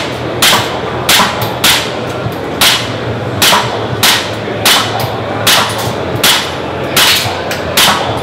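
An airsoft pistol firing single shots in steady succession, about eleven sharp cracks, a little under one a second, during timed shooting at a reaction-target unit. Under them runs the steady hum of a busy hall.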